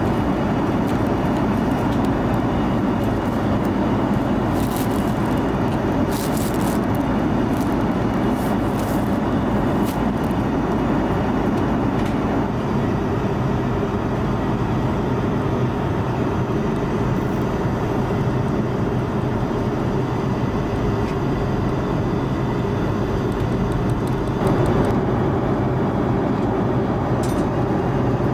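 Steady cabin noise of an Airbus A330-300 airliner in flight, an even rushing drone with a low hum. There are a few faint clicks a few seconds in, and the noise grows slightly louder about three-quarters of the way through.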